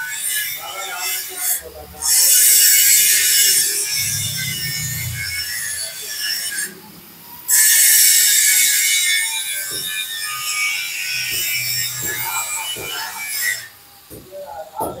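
Harsh abrasive scraping on metal, as when steel is filed or ground on a lathe. It comes in two long stretches, each starting and stopping abruptly, with a pause of about a second between them.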